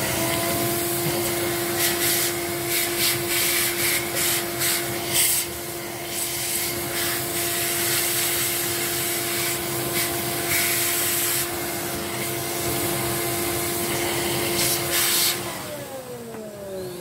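Vacuum cleaner running, its long crevice nozzle sucking dust out of the base of an opened vacuum-cleaner motor: a steady hum with irregular scraping and rubbing as the nozzle and a brush work over the parts. Near the end it is switched off and its pitch falls as the motor winds down.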